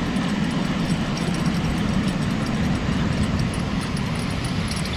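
Steady low rumble and rush of water pouring over a spillway dam, even throughout.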